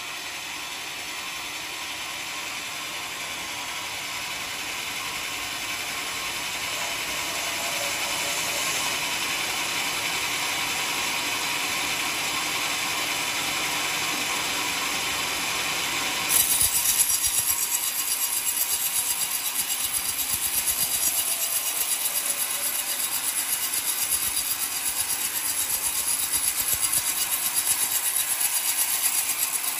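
Homemade band sawmill running and sawing an old coconut log. A little past halfway the sound turns suddenly louder and harsher, with a fast, even pulsing as the blade cuts.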